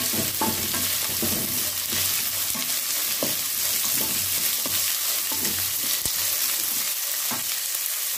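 Chopped onions, green chillies and curry leaves sizzling in hot oil in a steel kadai over a raised flame. They are stirred with a wooden spatula that scrapes and knocks against the pan about every half second.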